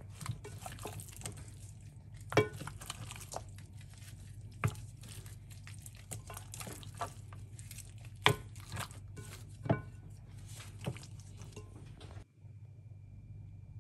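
Wet squishing of marinated bone-in goat meat being worked by gloved hands in a glass dish, with sharp clicks and knocks as pieces and bones hit the glass; two knocks stand out, a couple of seconds in and past halfway. The handling cuts off suddenly near the end, leaving a faint low hum.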